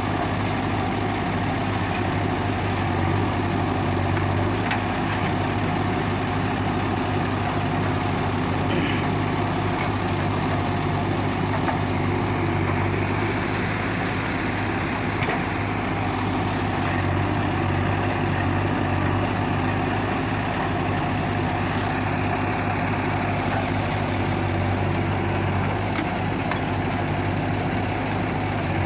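JCB 3DX backhoe loader's diesel engine running steadily as the backhoe digs and loads soil, with a few faint knocks.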